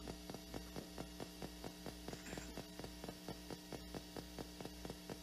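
PSB7 spirit box sweeping radio stations and playing through a small speaker box: a faint steady hum broken by a rapid, even train of clicks as the scan steps from station to station.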